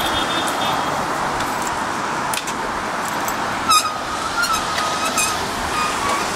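Steady city road-traffic noise. About four seconds in there is a sharp metallic click, then a short, thin, wavering high ringing tone.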